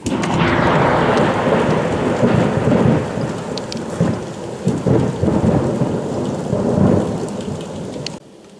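Thunder from a nearby lightning strike: an abrupt sharp crack, then rolling rumbles in several swells for about eight seconds before it cuts off.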